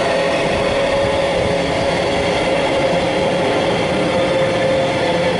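Container freight train's wagons running away along the track: a steady wheel-on-rail rumble with a faint tone slowly falling in pitch as the train recedes.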